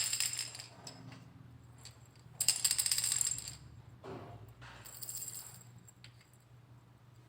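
Montessori sound cylinders being shaken, their filling rattling inside: a shake near the start, the loudest about two and a half seconds in, and a fainter one around five seconds, as the cylinders are compared by loudness.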